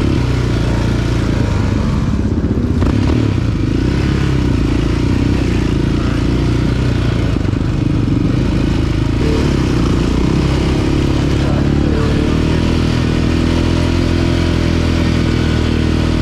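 Yamaha Raptor 700R ATV's single-cylinder four-stroke engine running under way on the trail, its pitch rising and dipping with the throttle in the first few seconds, then holding fairly steady.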